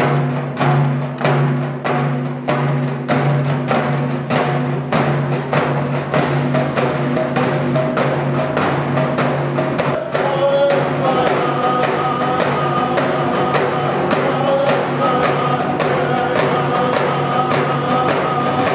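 Music: a steady drumbeat over a low held drone, with a higher melody coming in about halfway through.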